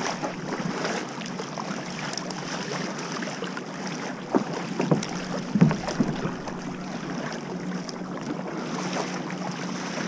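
Water rushing and splashing along a sit-inside sea kayak's hull as it is paddled through choppy sea, with wind buffeting the microphone. A few louder splashes from the paddle strokes come about halfway through.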